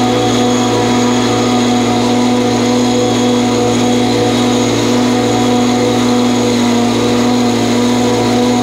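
Commercial stand-on mower's engine running at a steady, unchanging pitch while mowing, heard close from a camera mounted on the mower.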